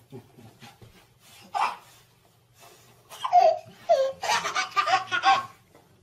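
Baby laughing: short high squeals about three seconds in, then a run of quick belly-laugh pulses.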